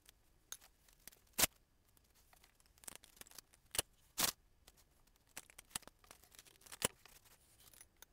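Masking tape being pulled, torn and pressed down: a string of short, sharp rips and clicks, the loudest a little over a second in and about four seconds in.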